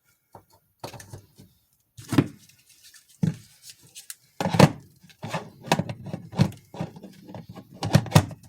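Irregular knocks, clicks and plastic clatter as a DeWalt cordless tool battery is handled and seated onto its charger. There is no motor run and no impact hammering.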